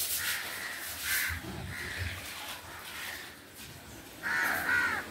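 Crows cawing several times in short harsh calls, the loudest one near the end.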